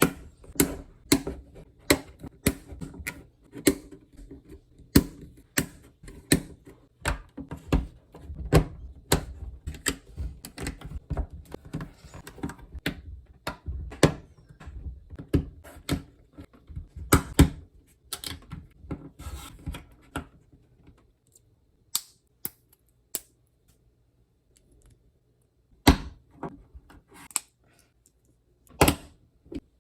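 Plastic Lego pieces clicking and rattling as they are handled and pressed together: a dense, irregular run of clicks that thins to a few separate clicks in the last third.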